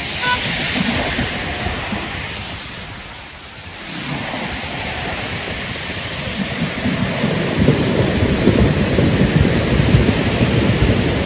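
Fast-moving muddy floodwater rushing in a torrent: a loud, heavy, low rush of churning water. It dips briefly a few seconds in, then runs louder.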